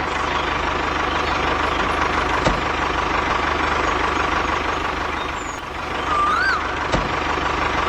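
Tractor engine running steadily with a thin constant whine over it. Two sharp clicks and a short rising-and-falling chirp near the end.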